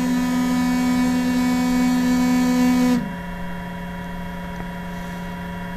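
UP Box 3D printer's stepper motors whining steadily as the platform moves during automatic nozzle-height detection. The whine cuts off abruptly about halfway through, leaving a quieter, lower steady hum.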